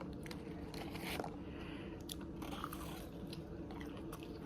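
Close-up eating sounds: a person biting and chewing food, with scattered small crunches and mouth clicks.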